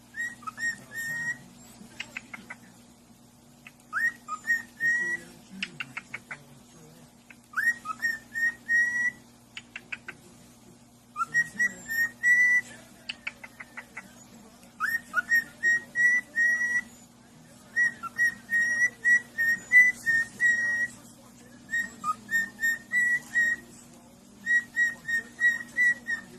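A parrot whistling a short tune over and over: phrases of clear notes, each opening with a quick upward swoop and then held level, with short runs of rapid clicks between the phrases.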